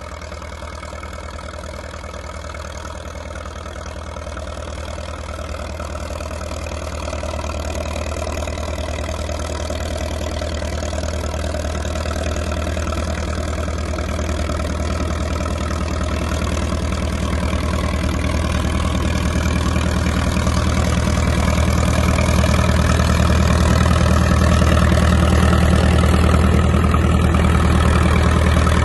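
International Harvester TD-6 crawler's four-cylinder diesel engine running steadily under load as it pushes a vee snow plow through deep snow. It grows steadily louder as the crawler comes closer.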